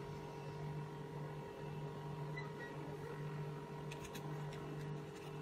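The hematology analyzer's built-in printer running as it prints a QC graph: a low, steady hum that breaks off briefly now and then, with a few faint clicks about four seconds in.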